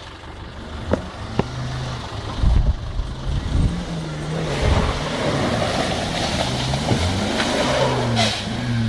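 Off-road 4x4's engine revving up and down as it is driven hard. There are a couple of sharp knocks early on, and a rushing noise joins about halfway through.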